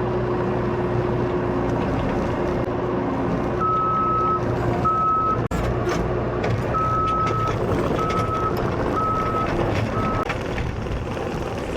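Skid steer engine running steadily under load, with its backup alarm beeping about six times at one high pitch while it reverses, starting a few seconds in and stopping near the end.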